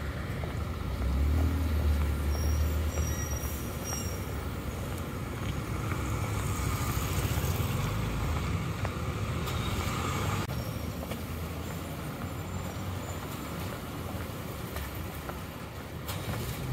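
Road traffic passing: motor vehicle engines and tyre noise, a steady rumble that is loudest about one to three seconds in.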